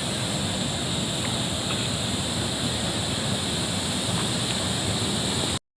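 Steady rushing noise on a moving boat, wind and water noise with no distinct beat, cutting off suddenly near the end.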